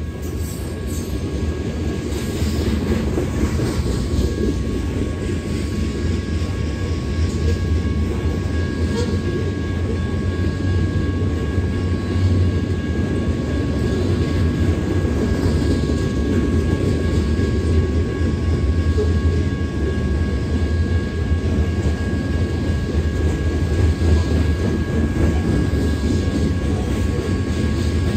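A long freight train of covered hopper cars rolling steadily past, a continuous low rumble of wheels on rail with a steady high tone above it.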